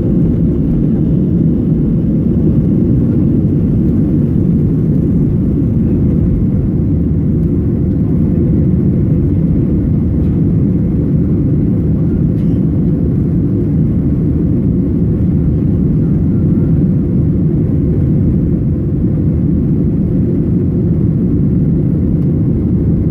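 Steady, loud roar of a Boeing 737's jet engines and rushing air, heard from inside the passenger cabin during takeoff.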